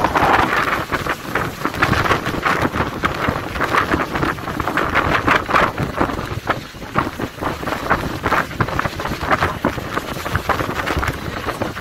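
Wind buffeting the microphone on the deck of a sailing yacht under way, with the rush of sea water along the hull beneath it.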